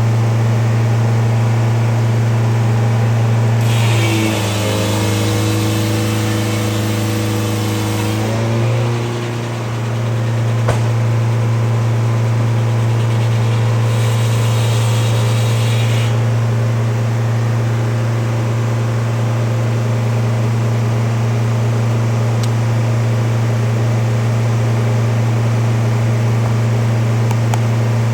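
An engine running steadily at a constant speed with a deep, even hum. About four seconds in, a second pitched whine joins for roughly four seconds, shifting in pitch before it fades. Hiss comes in twice.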